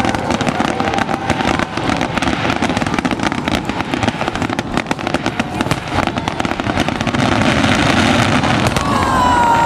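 Fireworks going off in a dense, continuous run of rapid bangs and crackles.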